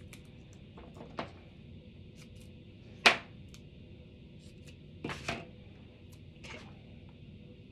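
Paper crafting on a tabletop: a handful of short, sharp taps and clicks as paper pieces and tools are handled, the loudest about three seconds in, over a faint steady hiss.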